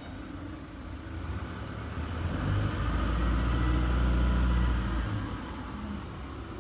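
A low mechanical motor hum that swells louder for about three seconds in the middle and then fades back.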